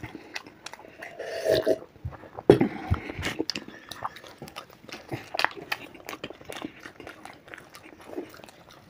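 Close-up chewing and lip-smacking of people eating fried paneer pasanda by hand, a run of short wet mouth clicks, with one sharper click about two and a half seconds in.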